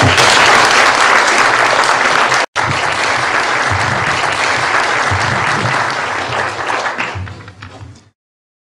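Audience applauding: dense, steady clapping that drops out for an instant about two and a half seconds in, then fades away over the last second or so.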